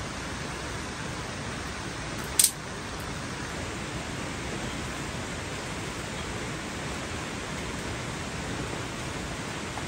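Steady rain falling, an even hiss of rain, with one short, sharp high click, the loudest sound, about two and a half seconds in.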